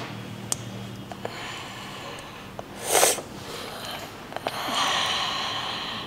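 A few light plastic clicks of keyboard switches and keycaps being handled and pressed into place. About three seconds in there is one short, loud breathy burst, and a longer hiss runs near the end.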